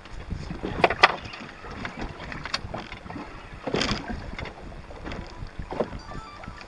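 Wind buffeting the microphone over water slapping against a small fishing boat's hull, with a few sharp knocks, loudest about one and four seconds in.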